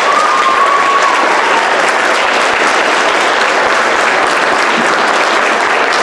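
Audience and cast applauding, a dense steady clapping, with a thin high tone over it for about the first second.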